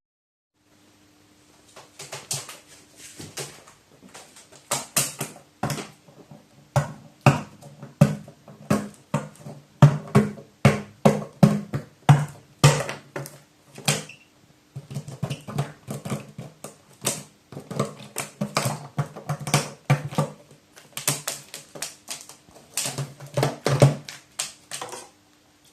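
Pet crow pecking and hammering at a peanut with its beak: many sharp, irregular taps and knocks in quick runs, some with a dull thump, over a faint steady hum.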